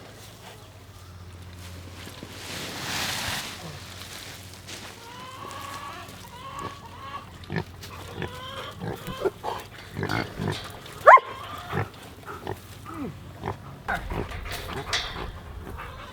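Pigs grunting in their straw pen, with one short, sharp rising squeal about eleven seconds in. Straw rustles near the start as fresh bedding is spread.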